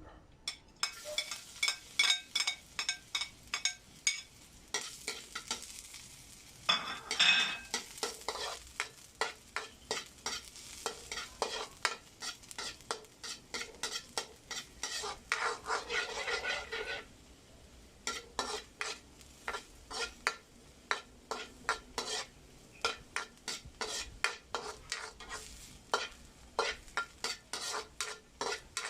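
Spatula repeatedly striking and scraping a frying pan while stir-frying fried rice, about two to three strokes a second, over sizzling that dies down about two-thirds of the way through.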